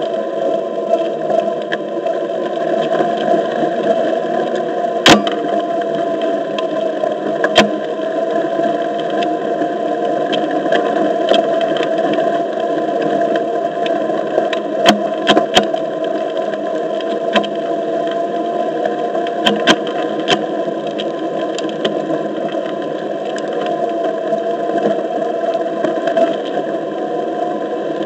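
Onewheel XR's hub motor whining steadily with the tyre rolling over a dirt path, the whine wavering slightly in pitch. About ten sharp clicks and knocks come through it as the board runs over stones and ruts.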